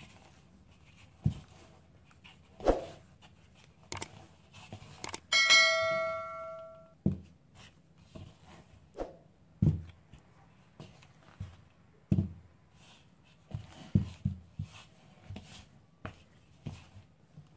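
Hands pressing and turning soft dough in a bowl, giving scattered dull thumps and knocks. About five seconds in, after a couple of sharp clicks, a single bell-like ding rings out and fades over about a second and a half.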